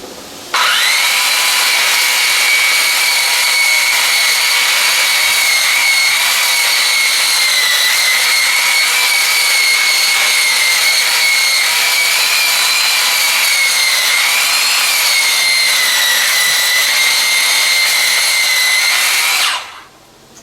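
Makita drum sander switched on and run against a hand-hewn log: a steady high motor whine over a rushing sanding noise, dipping slightly in pitch a couple of times. It starts about half a second in and shuts off about a second before the end.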